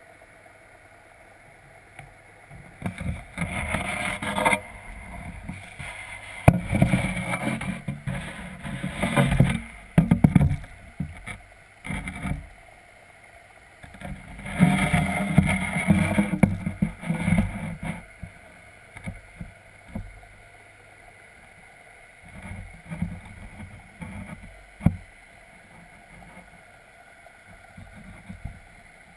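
Muffled water movement and knocks heard through a GoPro's waterproof housing underwater. It comes in irregular bursts a few seconds long, with a few sharp clicks, over a low steady hum in the quieter stretches.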